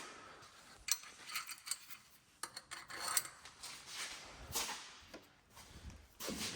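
Small steel hardware (nuts, washers and spacers) clinking and scraping against the exhaust manifold studs as it is fitted by hand: a scatter of light metallic clicks and short rubs.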